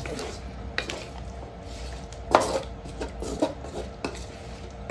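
Wooden spatula stirring chicken feet in a wok, scraping the pan with irregular knocks; the loudest knock comes about two and a half seconds in.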